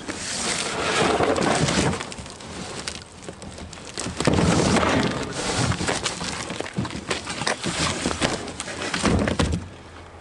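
Cardboard box scraping and rustling as a steel roof cargo basket is pulled and slid out of it, with knocks and rattles of the metal frame. It comes in three noisy bouts: at the start, from about four to six seconds, and a short one near the end.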